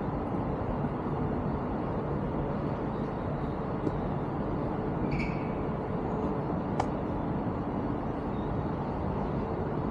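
Steady outdoor city traffic rumble, with a short high chirp about five seconds in and a sharp click near seven seconds.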